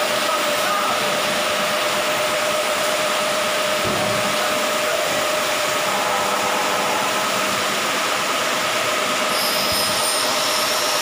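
Steady running noise of workshop machinery with a constant hum. Near the end a high-pitched whine joins in as an angle grinder cuts metal, throwing sparks.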